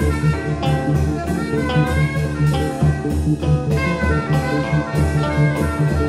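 Small ensemble playing improvised jazz: electric guitar, keyboard, conga, reeds and percussion. A pulsing bass line and held melodic notes run over a steady beat of about two strokes a second.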